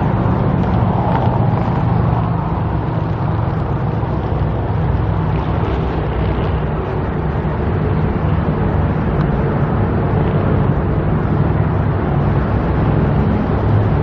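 Steady low rumble of wind buffeting the microphone, mixed with road traffic.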